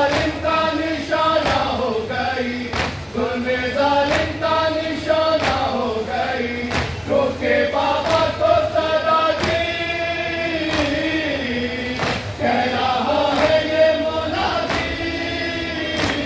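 A crowd of men chanting a Muharram noha (mourning lament) together, with sharp, regular thuds of chest-beating (matam) falling about once every 1.3 seconds in time with the chant.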